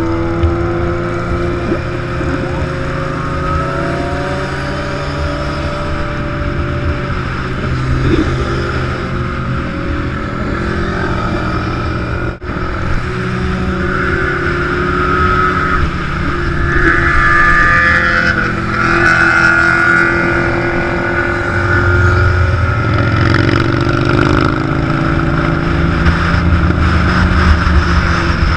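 Large motorcycle engines running as a group rides, with revs rising and falling over one another.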